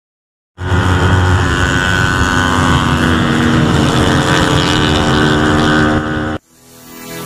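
Motorcycle engine running flat out at high revs at a steady pitch, with wind noise, during a top-speed run. It cuts in suddenly about half a second in and stops abruptly about six seconds in.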